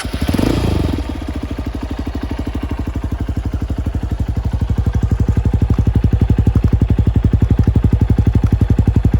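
Honda CRF150L's single-cylinder four-stroke engine, running through an Exos X6 exhaust with its silencer removed. It revs briefly in the first second, then settles into a steady, evenly pulsing idle that grows somewhat louder about four to five seconds in.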